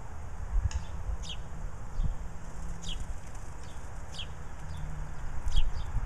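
Songbirds at a feeder calling: short, high, sharp notes that slide downward, one every second or so, over a low rumble of road traffic.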